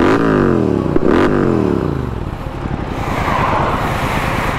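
Motorcycle engine and exhaust revved twice, the pitch shooting up and then falling away each time, before settling into steady wind and road noise.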